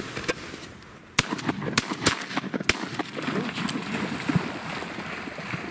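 Several shotgun shots in quick succession at ducks, starting about a second in and spread over about a second and a half.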